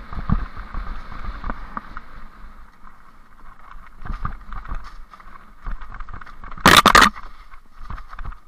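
Bicycle rolling fast down a rough, leaf-covered forest trail: a steady rush with irregular rattles and knocks from the bike over the bumpy ground. A brief, loud jolt comes about seven seconds in.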